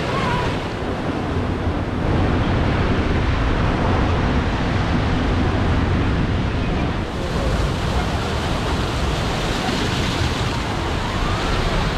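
Rushing, churning water around a river rapids raft, with wind noise on the microphone.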